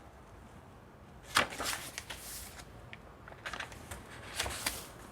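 Paper pages of a handmade journal being turned and handled: a sudden rustle about a second in, then a few short crisp flicks and rustles.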